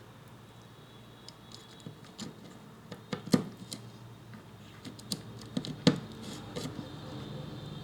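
Scattered light clicks and taps of small parts and tools being handled on a workbench, with two sharper knocks about three and six seconds in, over a faint steady low hum.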